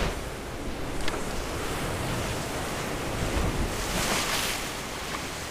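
Sea waves washing on the shore, with wind on the microphone; a wave swells up and washes in about three to four seconds in. A single small click about a second in.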